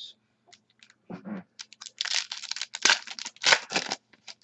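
A foil trading-card pack wrapper being torn open and crinkled by hand: scattered rustles, then a dense run of crinkling for about two seconds.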